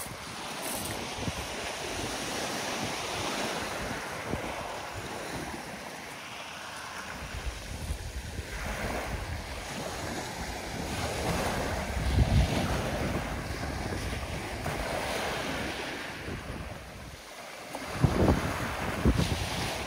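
Small waves washing onto a pebble shore, with wind buffeting the microphone in gusts that are loudest about twelve seconds in and near the end.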